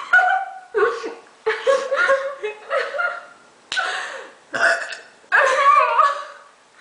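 A young woman burping a quick string of short, loud burps, about seven of them, each starting suddenly and coming less than a second apart. The burps come from swallowed gas after chugging carbonated soda.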